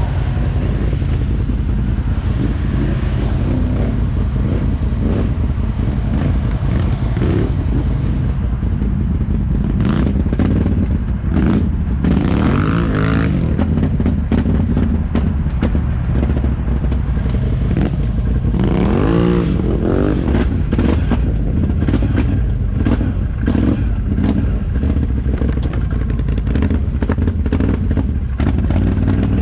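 ATV engine running steadily while riding a trail, revving up and back down about twelve seconds in and again near nineteen seconds, with frequent rattles and knocks from the machine over rough ground.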